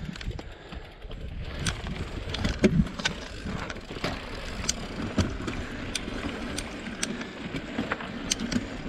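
Mountain bike rolling over rocky dirt singletrack. Its knobby tyres make a steady low rumble on the gravel, with frequent sharp clicks and rattles as it rides over loose stones.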